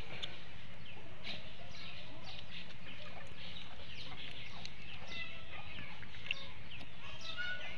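Scattered short bird calls, chirps and clucks, over a steady low background noise.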